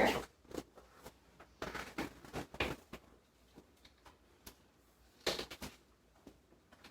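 Scattered rustling and light knocks as a person shifts position on a chiropractic treatment table, with a denser run of rustles about two seconds in and another brief burst near the end.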